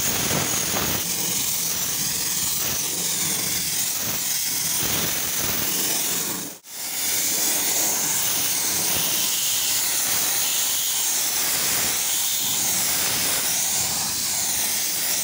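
Compressed-air gravity-feed spray gun hissing steadily as it sprays zinc chromate primer onto a steel truck hood panel, with one brief break a little before halfway when the spray stops and starts again.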